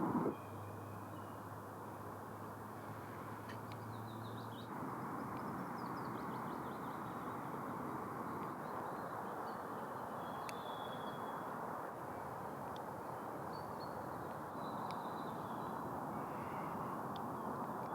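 Steady rushing of wind and lake water in light wind, with faint distant bird calls over it: a short trill about four seconds in and a few brief whistled notes later on. A faint low hum is present for the first few seconds.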